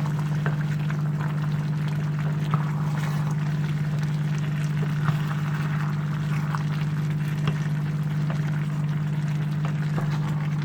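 A pot of vegetables and tuna in coconut milk boiling, with small scattered bubbling pops over a steady low hum.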